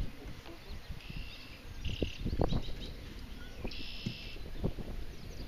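Birds calling in short buzzy bursts over a low rumble of wind on the microphone, with a few brief low knocks about two seconds in as a small bass is handled on the boat.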